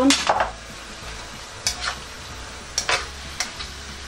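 Pork and vegetables sizzling in a pan for pancit bihon while a utensil stirs them, knocking and scraping against the pan a handful of times.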